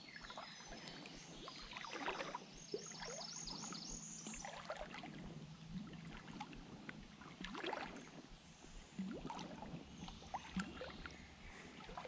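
Water sloshing and splashing in irregular swishes around the legs of someone wading through a shallow creek. A brief run of high chirps about three seconds in.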